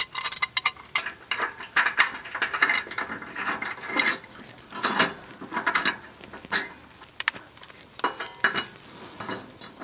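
Hand socket ratchet clicking in short, irregular runs with pauses as a bolt under a zero-turn mower deck is turned.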